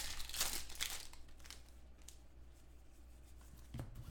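Foil trading-card pack wrapper crinkling in the hands, dense for the first second or so and then fading, with a soft thud near the end.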